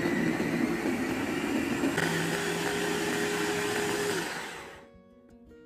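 Electric mini food chopper running at full speed, its blades grinding chopped spice ingredients until fine. The motor's steady hum winds down and stops at about four seconds in.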